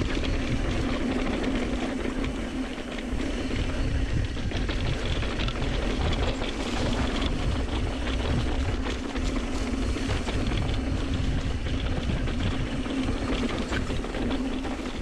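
Mountain bike riding fast down dirt singletrack: tyres rolling over the trail with continual small rattles and knocks from the bike, and wind rushing over the chest-mounted microphone, under a steady low hum.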